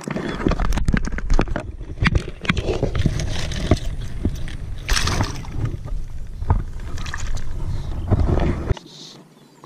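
Water sloshing and splashing as a small Indo-Pacific tarpon is lowered into shallow lagoon water and released, mixed with loud close handling noise: rustling, knocks and rumble right at the microphone, which stops abruptly near the end.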